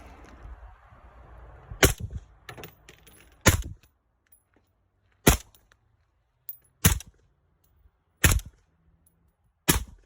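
Six suppressed shots from a 10.3-inch 5.56 rifle fitted with an Omega 300 suppressor with a 5.56 end cap, fired one at a time about a second and a half apart, starting about two seconds in.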